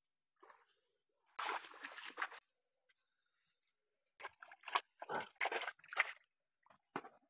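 Water splashing and sloshing: a noisy splash about a second and a half in as a hooked fish comes thrashing out of shallow water, then a quick run of splashes and sloshes from about four to six seconds as the fish is handled in a plastic tub of water, with one last splash near the end.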